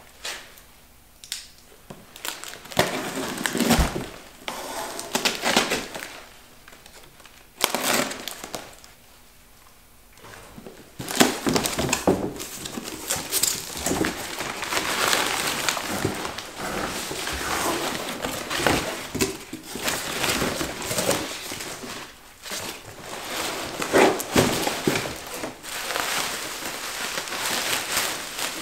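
Cardboard box flaps and plastic packing material rustling and crinkling as a parcel is unpacked. For the first ten seconds or so it comes in short bursts with quiet gaps. After that it turns into an almost unbroken crinkling of bubble wrap being pulled away from a part.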